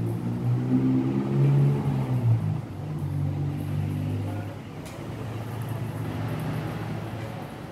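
A motor engine running with a low hum, its pitch rising and wavering over the first couple of seconds and then holding steadier as it slowly fades. A single sharp click about five seconds in.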